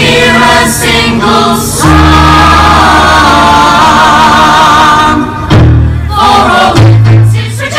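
A musical theatre cast singing together as a chorus over an accompaniment with a steady bass line. About two seconds in they hold one long note with vibrato for some three seconds, then go on to shorter phrases.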